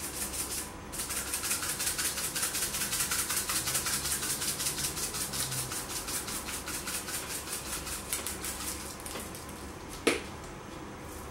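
Sprinkles shaken in their container, rattling rapidly for several seconds and thinning out, then a single sharp click about ten seconds in.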